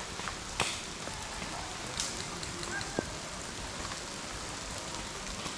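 Steady rain falling, an even hiss, with three sharp ticks about half a second, two seconds and three seconds in.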